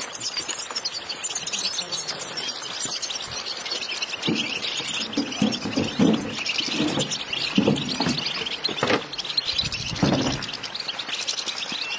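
A large crowd of caged European goldfinches chirping and twittering all at once in a dense, continuous chatter. A few louder, lower sounds come through in the middle.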